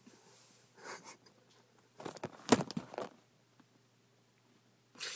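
Rustling with a few sharp clicks and knocks, a cluster of them about two to three seconds in, from hands rummaging around a car seat.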